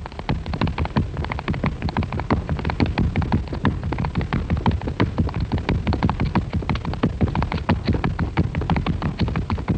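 Dancers' feet stamping and tapping out a quick folk-dance rhythm, several beats a second, with no music playing.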